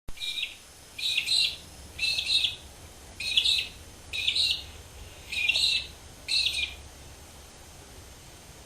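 A bird calling seven times in a regular series, about one call a second, then falling silent.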